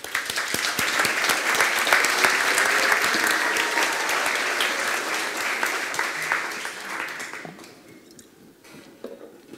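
Audience applauding: dense clapping from many hands that starts at once, holds for about seven seconds and then fades out.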